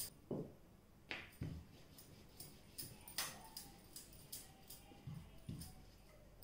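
Faint, irregular knocks and clicks of a rolling pin on a rolling board as small puris are rolled out.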